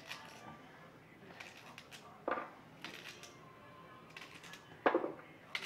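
Kitchen knife slicing a raw carrot held in the hand, the slices dropping into a roasting pan: a crisp snap about two seconds in and two more near the end, with light clicks between.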